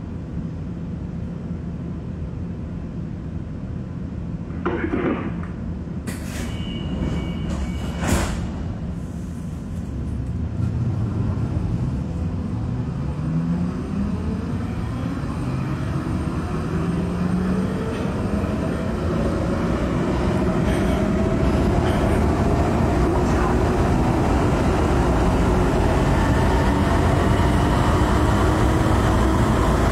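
Munich U-Bahn B-Wagen with ASR drive pulling away. After a few sharp clicks in the first ten seconds, the traction drive's whine rises steadily in pitch as the train speeds up, and the running noise grows louder.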